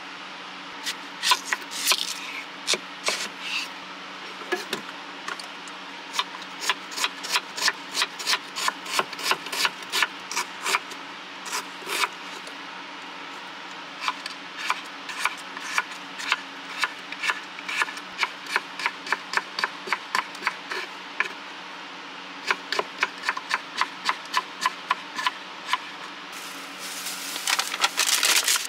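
Kitchen knife chopping vegetables on a wooden cutting board, sharp knocks in runs of about three to four strokes a second. Near the end, a thin plastic produce pack crinkling as it is handled, stopping abruptly.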